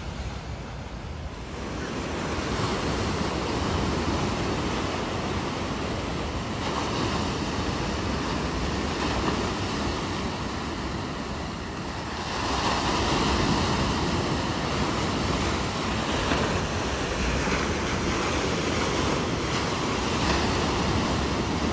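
Small ocean waves breaking and surf washing ashore, with wind buffeting the microphone. The wash swells louder about two seconds in and again around twelve seconds.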